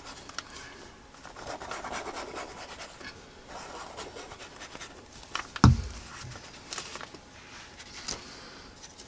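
Paper rubbing and rustling as paper pieces are handled and pressed down, with one dull thump a little past halfway.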